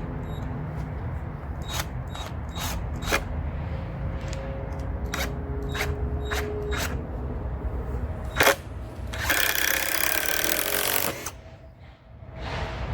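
A hammer striking metal, about a dozen sharp knocks over the first nine seconds with the last one the loudest, then a power drill running for about two seconds to drive in a new screw.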